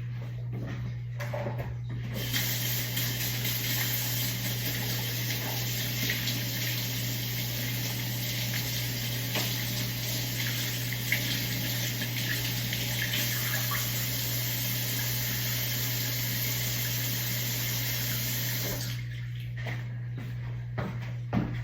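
Water running steadily from a tap, starting about two seconds in and cutting off near the end, over a steady low electrical hum.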